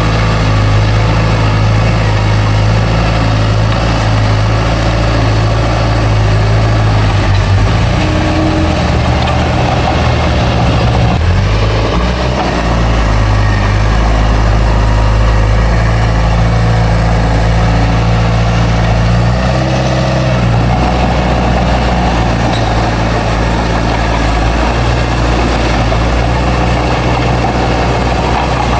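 Heavy diesel engine of an earthmoving machine running steadily at work, its low engine note stepping up and down a few times as the load changes.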